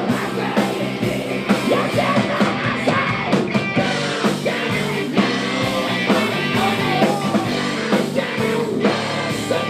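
Rock music with a steady drum beat and a voice singing or yelling.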